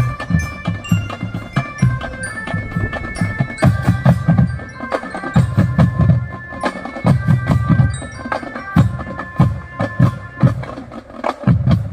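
A non-brass drum band playing: a bell-like melody from tuned mallet percussion over pounding drums and sharp clicking strokes. The playing stops suddenly at the very end.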